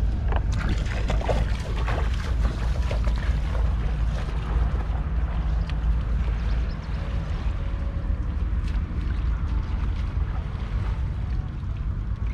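Wind buffeting the microphone as a steady low rumble, with water splashing and sloshing over the first few seconds.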